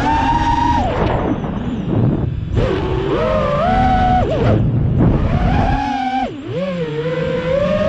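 FPV quadcopter's brushless motors and propellers whining, the pitch rising and falling with throttle over a rushing noise, with a brief chop and drop in pitch about six seconds in before climbing again.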